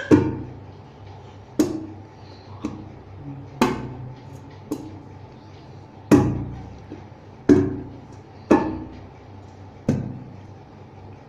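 A toddler's hands striking a stainless steel plate, about nine irregular hits roughly a second apart, each giving a sharp metallic clang that rings briefly.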